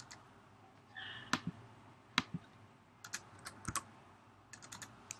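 Typing on a computer keyboard: a handful of separate keystrokes, sparse and irregularly spaced, with a quicker little run of them near the end.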